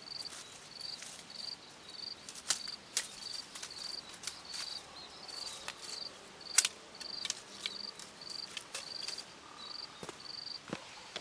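An insect chirping steadily, short evenly spaced chirps about one and a half a second, with irregular sharp clicks and snaps over it, the loudest about six and a half seconds in.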